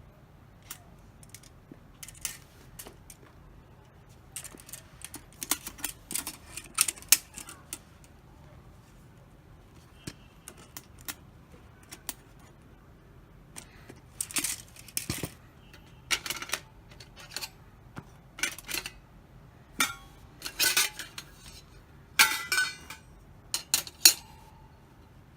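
Metal parts of a Campingmoon mini fire stand clinking and rattling as they are handled, in scattered clusters of sharp clicks with a quieter pause partway through.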